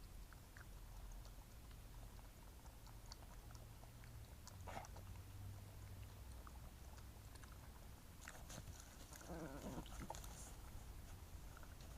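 Badgers feeding at close range: faint chewing, crunching and snuffling, louder for about two seconds near the end, with a brief noise about halfway through.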